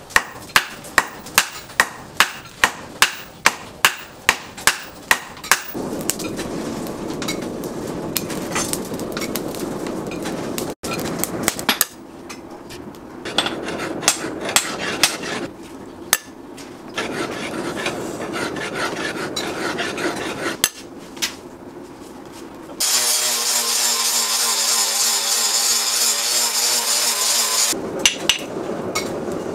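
Two hammers striking hot leaf-spring steel on an anvil in turn: a steady run of about thirteen sharp metal blows, a little over two a second, that ends about six seconds in. After the blows come scraping and rasping metalwork noises, and near the end there is about five seconds of steady hissing.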